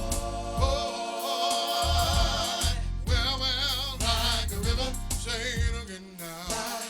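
Gospel music played by a band with bass and a steady beat, with a lead voice holding long wavering notes.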